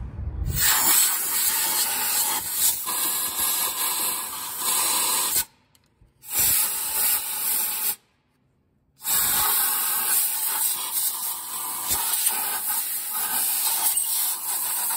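Compressed-air blowgun blasting in three long bursts, blowing debris out of the spark plug wells so it doesn't fall into the cylinders when the plugs come out.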